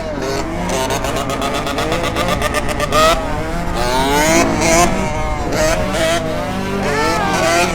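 Two-stroke dirt bike engines revving hard, their pitch climbing and dropping again and again, with more than one engine heard at once.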